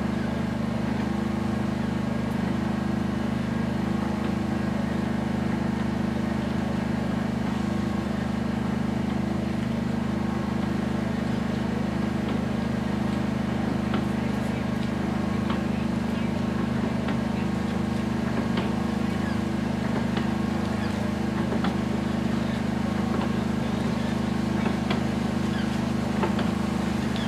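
A steady low drone of a motor running at constant speed: several held tones that do not change in pitch, with faint scattered ticks over it.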